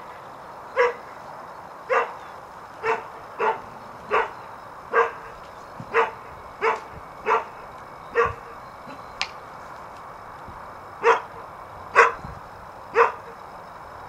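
Rough collie barking at a stranger: single barks about once a second for some eight seconds, a pause of nearly three seconds, then three more barks.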